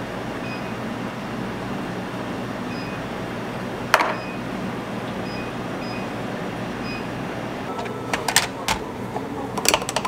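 Steady low hum of café background machinery with faint short beeps now and then, a single sharp click about four seconds in, and a run of clicks and knocks near the end.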